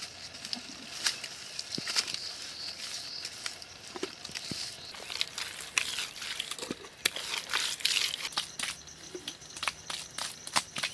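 Hands slapping and smearing wet red clay plaster onto a mud wall: irregular wet scrapes, pats and small clicks.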